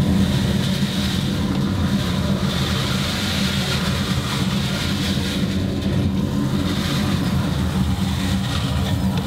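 Dust extractor running as its hose sucks wood shavings out from inside a planer-thicknesser: a steady, loud drone with a hiss.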